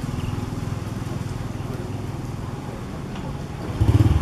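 A small engine running steadily as a low, pulsing hum, with a louder engine coming in near the end.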